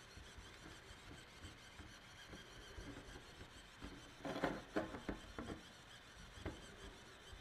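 Faint rubbing and scraping of a 3D pen's tip dragged along a grooved mat as it lays filament, with a short run of scrapes about four to five and a half seconds in and one more a second later.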